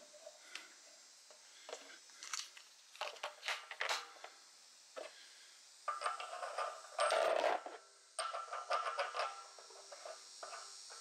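Light clicks of handling, then, from about six seconds in, a brass fitting scraping and rattling as it is turned by hand onto the tape-wrapped steel nipple of a water heater. The loudest scrape comes about seven seconds in.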